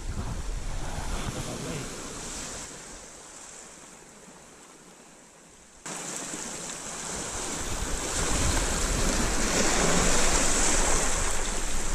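Sea surf washing over a pebble beach and rocks, with wind buffeting the microphone. About halfway through it jumps suddenly louder and stays loud, closer to the breaking water.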